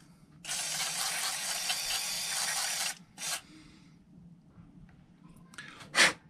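WD-40 aerosol can spraying through its red straw into a small plastic carburetor part: one steady hiss of about two and a half seconds, then a short burst about three seconds in and another near the end. The spray is flushing muck out of the carburetor's jets and passages.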